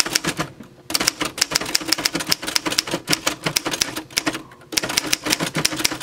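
1952 Remington Super-Riter standard manual desk typewriter being typed on fast: a rapid run of key and typebar strikes, several a second. The typing breaks off briefly near the start and again about four seconds in before running on.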